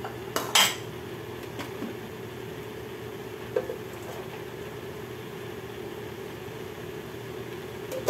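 A cooking pan clattering and knocking against other kitchenware: a sharp clank about half a second in and a lighter knock a few seconds later, over a steady low hum.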